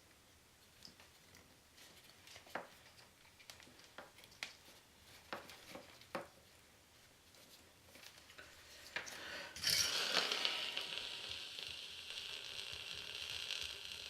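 Scattered light clicks and taps of small parts being handled, then about two-thirds of the way in a sudden crackling sizzle as the hot soldering tip melts solder and flux into a bullet connector, easing off but carrying on.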